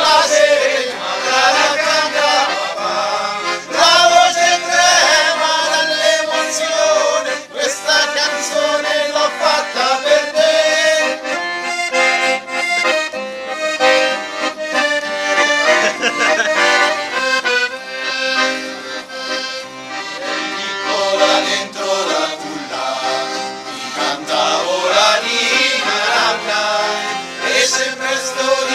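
Accordion playing a traditional Italian serenade tune.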